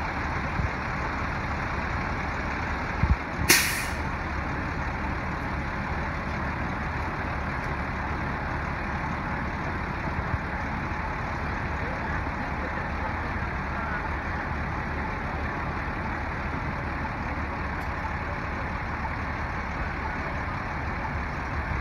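Crane truck's diesel engine running steadily, with a couple of knocks and then a short hiss of released air about three and a half seconds in.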